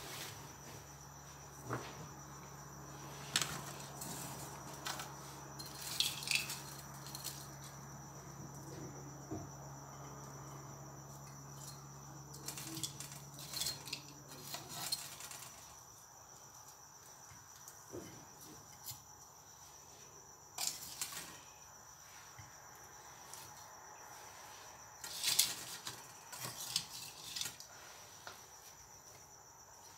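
Scattered light clinks and clatters of metal tongs against a metal bowl and a ceramic plate as fried chicken wings are lifted and set down, over a steady high chirring of crickets.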